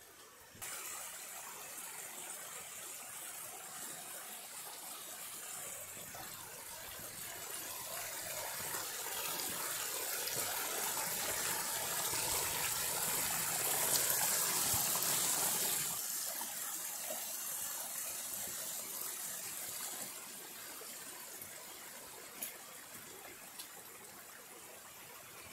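Mountain stream rushing over rocks. It grows steadily louder to a peak around the middle, drops off suddenly about two-thirds of the way in, then fades away.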